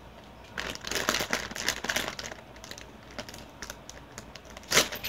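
A Doritos ketchup-flavour chip bag crinkling as it is handled, in quick clusters of crackles through the first two seconds and one louder crackle near the end.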